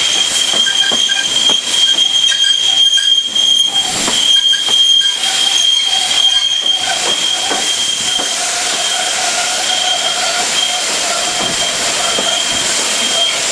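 Steam-hauled passenger train's running gear squealing with a steady high-pitched tone as the train slows into a station, a lower squeal joining about halfway through. Sharp clicks from the wheels over the rails come through in the first several seconds.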